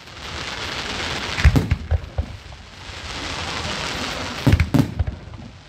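Fireworks: a steady hiss broken by sharp bangs in pairs, about a second and a half in and again near the end.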